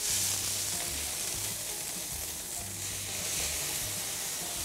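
Whole sardines and butterflied sardine fillets sizzling on a char-grill over open flame, a steady high hiss.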